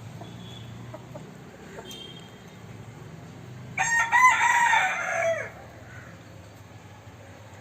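Gavran (desi village-breed) rooster crowing once, a call of nearly two seconds that falls in pitch at the end, with quieter clucking from the flock.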